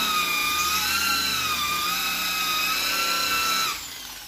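Electric rotary polisher with a foam pad buffing a repainted car bumper: a steady high whine that wavers slightly in pitch. It is switched off near the end and winds down.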